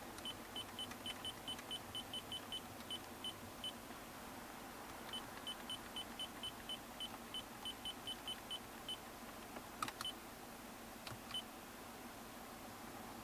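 Lexus LS460 dashboard controls beeping with each button press: two runs of about fifteen quick, same-pitched beeps separated by a short pause, followed by a few sharp clicks.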